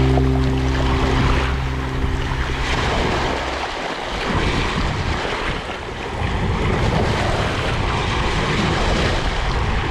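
Sea waves washing, a steady rushing noise that rises and falls, with held music notes fading out about three seconds in.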